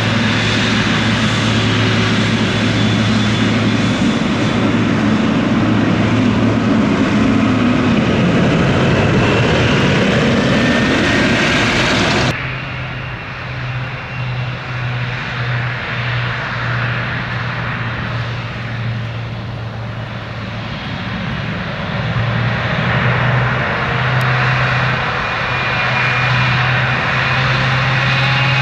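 Boeing 747 jet engines running loud, a dense rush with a high whine over it. About twelve seconds in the sound cuts abruptly to a quieter, duller take of the same engine noise, which builds again near the end.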